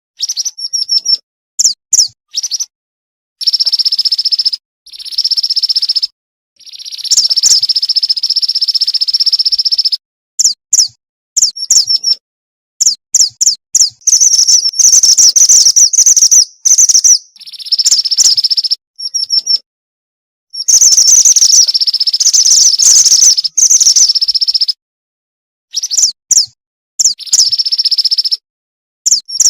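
Female mantenan bird calls used as a lure: runs of short high chirps alternating with longer, dense trilling phrases lasting one to four seconds, broken by sudden gaps of dead silence.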